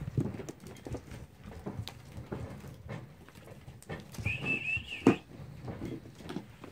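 American Bully puppies rough-playing: short low growls and grunts with scuffling and clicking on the floor. About four seconds in, a high squeal lasts almost a second, then ends in a sharp thump, the loudest sound.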